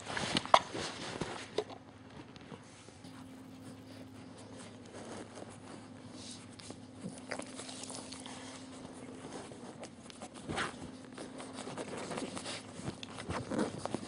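Two-and-a-half-week-old French Bulldog puppies shuffling and nuzzling on a blanket, with soft mouth noises, small clicks and a few faint squeaks. A steady low hum sits underneath.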